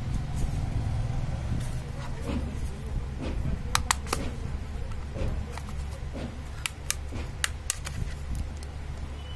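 Sharp plastic clicks and snaps as the back cover of a JioPhone F320 feature phone is unclipped and pried off. There are two clicks about four seconds in, then four more in quick succession near seven seconds, over a steady low background hum.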